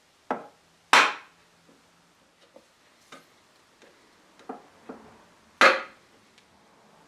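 Sharp knocks on wood: three loud strikes, the loudest about a second in and another near the end, with several lighter taps between them, as of tools worked or set down on a wooden workpiece.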